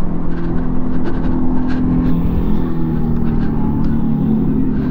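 Revolt RV400 electric motorcycle's simulated superbike engine sound, played through its onboard speaker while riding, a steady low drone that dips slightly in pitch and rises again near the end, over wind rumble on the microphone.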